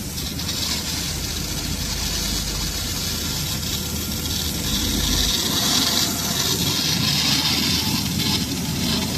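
Fiber laser cutting machine running: a steady hiss of cutting gas over a machine hum, the hiss growing stronger in the second half.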